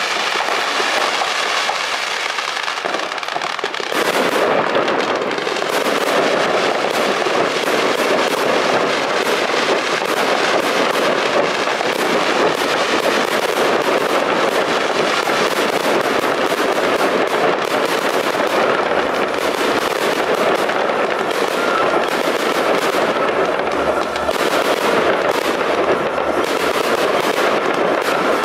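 Fireworks display: a continuous rapid crackle of pops and bangs from fountains and aerial shells, growing denser about four seconds in.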